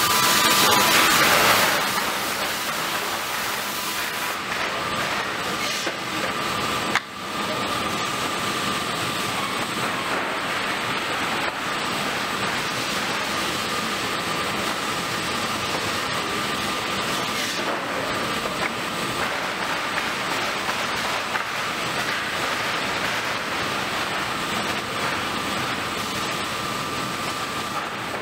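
L&M package saw cutting through a stacked bundle of lumber as it feeds along the conveyor: a loud, steady saw noise with a faint high tone running through it. It is loudest in the first two seconds and dips briefly about seven seconds in.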